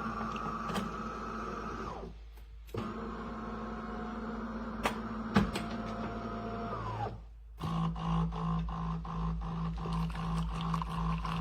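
A machine's motor hums steadily, winds down with a falling pitch and stops twice; after the second stop a lower, pulsing hum starts, with a couple of sharp clicks in the middle.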